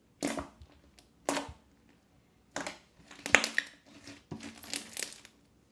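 Crunchy slime being squeezed and pressed, crackling and popping in separate bursts about once a second, the loudest a little past halfway.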